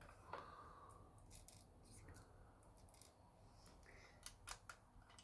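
Faint, scattered clicks of small plastic Lego DOTS tiles being pressed onto a box, a few at a time in irregular bunches.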